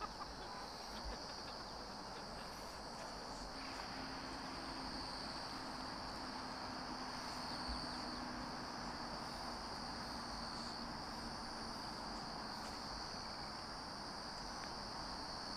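Crickets chirring steadily as one continuous high-pitched trill, with a faint low hum in the middle of the stretch.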